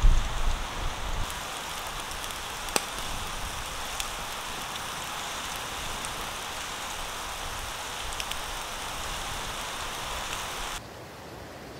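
Marinated chicken grilling over glowing campfire coals: a steady sizzling hiss with a few sharp crackling pops, and a low rumble in the first second. The sizzle cuts off shortly before the end, leaving only a fainter hiss.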